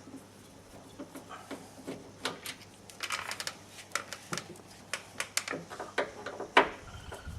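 Irregular clicks, taps and clinks of hand tools against the metal and plastic parts inside a car door, as the door lock and latch linkages are worked loose, with one sharper knock near the end.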